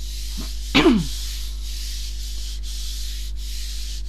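A palm rubbing and smoothing a sheet of card pressed onto a gel plate, a steady dry rubbing hiss, to transfer the print. One short falling squeak about a second in is the loudest moment.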